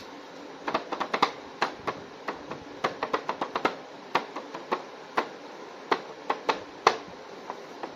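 Irregular plastic clicks and taps from a toy action figure being handled, some in quick clusters.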